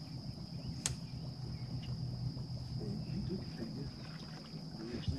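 Quiet lakeside ambience: a steady, high-pitched insect drone over a low hum, with a single sharp click about a second in.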